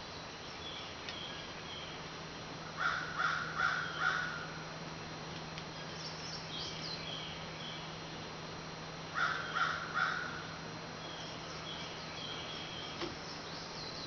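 A crow cawing: four caws in quick succession about three seconds in, then three more a few seconds later, over faint background chirping.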